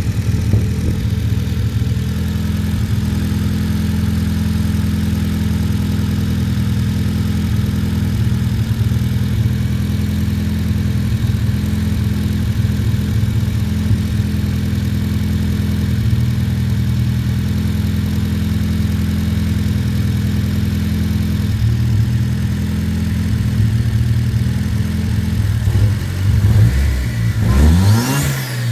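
Volvo 940's 2.3-litre turbo four-cylinder (B230FT) running at a steady idle on a newly fitted Megasquirt ECU and Ford Mondeo wasted-spark coil pack. Near the end the throttle is blipped by hand a couple of times, the revs rising and falling.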